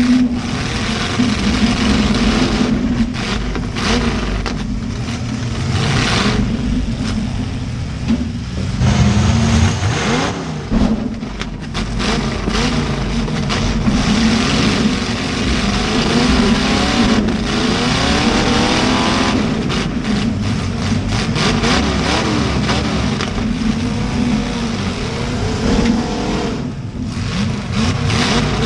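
Demolition derby car engines revving up and down hard, with repeated sharp crunching impacts of cars colliding.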